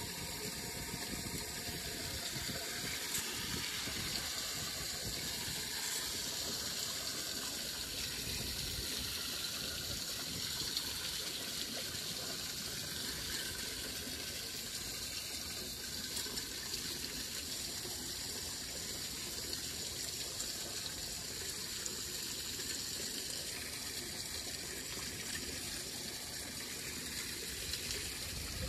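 Standing street water gushing steadily down a storm drain that has just been cleared of leaf muck.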